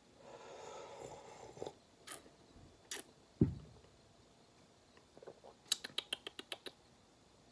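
A man slurps a sip of hot coffee from a glass mug, followed by a few small mouth clicks and a single low thump about three and a half seconds in. Near the end come a quick run of about eight sharp lip smacks as he tastes it.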